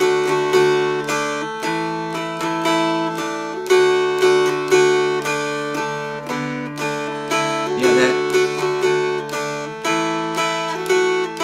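Two mountain dulcimers strummed together in a steady rhythm, the melody moving over an unchanging drone note.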